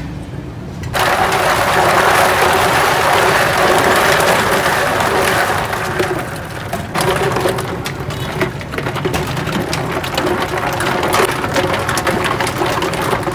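Sharbat poured in a thick stream into a large metal vat of ice, splashing loudly from about a second in. From about halfway on, a metal ladle stirs it, with ice knocking and scraping against the vat in quick clicks.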